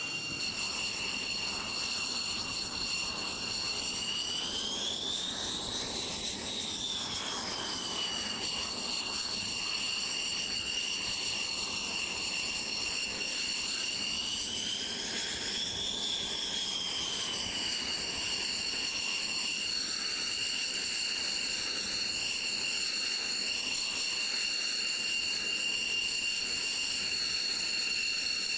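Northrop Grumman X-47B's Pratt & Whitney F100 turbofan running at low power on deck, a steady high whine. The pitch rises twice, about six seconds in and again around sixteen seconds, then settles back: brief throttle increases.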